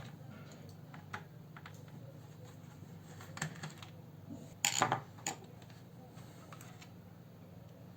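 Scattered light clicks and taps of a screwdriver and small screws on a netbook's plastic case, with a brief cluster of louder clicks about five seconds in.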